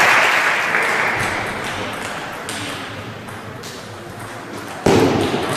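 Table tennis hall: clapping and cheering for a won point fade over the first couple of seconds. Then come light pings of the ball, and about five seconds in a sudden loud burst of crowd noise.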